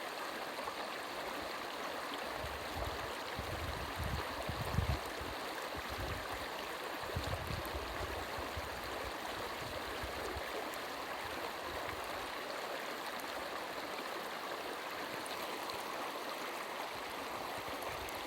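Small brook running over stones with a steady babbling and gurgling. A few low rumbles come in a few seconds in, the strongest about five seconds in.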